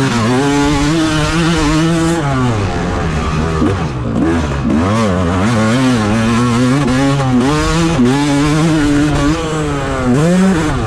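Motocross dirt bike engine revving up and down, its pitch rising and falling again and again as the rider goes on and off the throttle, heard from the rider's helmet camera.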